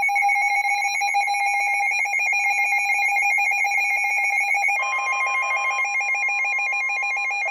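Several NOAA weather alert radios sounding their alarms together, a loud, fast-warbling electronic tone, signalling an incoming warning. About five seconds in, a second steady tone joins: the NOAA Weather Radio warning alarm tone that precedes the severe thunderstorm warning message.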